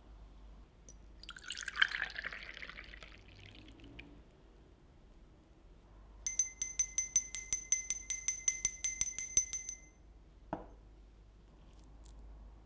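Small hand bell shaken, ringing with quick, even strikes for about four seconds, then set down with a single knock. A brief scraping noise comes earlier.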